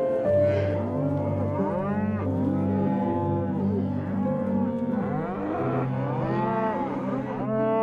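An animal calling again and again, short calls that rise and fall in pitch about a second apart, over steady background music.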